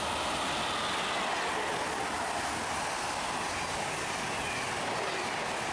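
Electric passenger train running at speed: a steady rush of wheel and rail noise, with a faint whine that falls in pitch.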